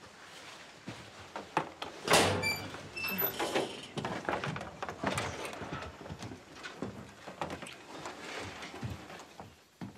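Clothes rustling as two people move close together, with scattered soft knocks and creaks and a louder burst of rustle about two seconds in.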